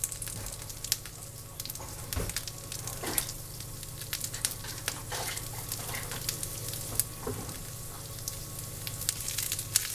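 Green beans and mushrooms sizzling in hot oil in a frying pan, with steady crackling and now and then the scrape of a utensil stir-frying them.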